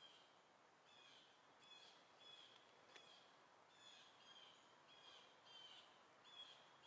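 Faint birdsong: short, high chirps repeating about twice a second over a low outdoor hiss.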